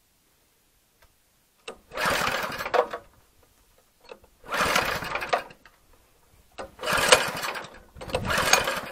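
Small single-cylinder petrol engine of an Oka walk-behind tractor being pull-started four times. Each pull cranks it for about a second, and the stalled engine does not keep running.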